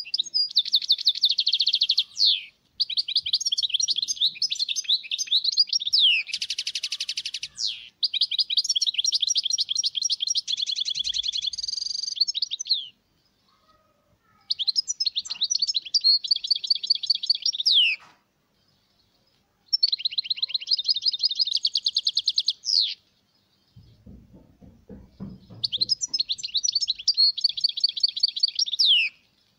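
European goldfinch song: fast twittering, trilled phrases a few seconds long with short pauses between them, including one harsher buzzy stretch.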